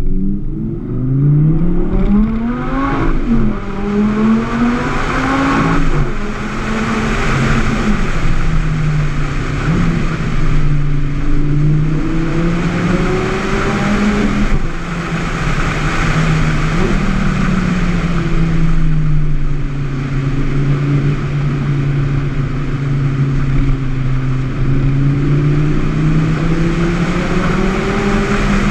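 Audi R8 V10 Spyder's 5.2-litre V10 through a Quicksilver aftermarket exhaust, driving on the open road. The engine note rises a couple of times in the first six seconds, then holds low and steady with gentle swells, under constant wind and road noise.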